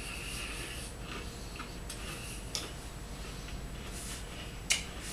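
Crunchy granola cereal being chewed, crackling in short spells, with a few sharp clicks.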